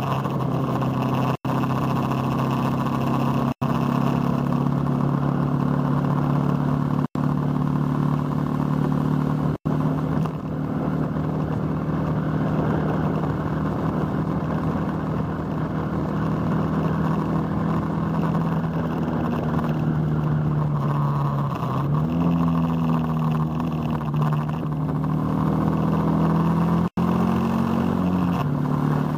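Motorcycle engine running steadily at cruising speed, heard from the onboard camera with wind and road noise. The engine note rises a little about two-thirds of the way through and falls back near the end. The sound cuts out briefly five times.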